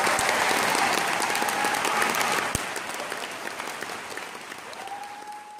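Concert-hall audience applauding, the clapping thinning and fading away over the second half. A single thump about halfway through, and a faint steady high tone near the end.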